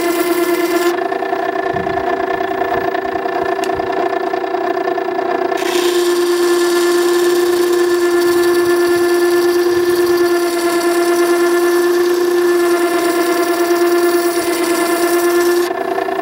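Makita 9820 electric water-stone grinder running with a steady humming whine while a chisel bevel is ground free-hand on its wheel. A higher hiss of steel on the stone drops out about a second in, returns after about five seconds, and stops near the end.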